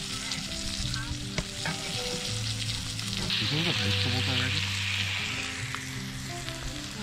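Steaks sizzling in a cast-iron skillet over a campfire, with a few light crackles. The sizzle swells about three seconds in and eases again near the end.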